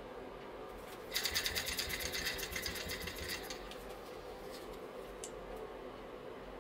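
Small brass model steam engine, freshly oiled, spun over by hand. Its flywheel and crank give a rapid run of clicks, about ten a second, starting about a second in and slowing and fading over two seconds or so as it coasts down.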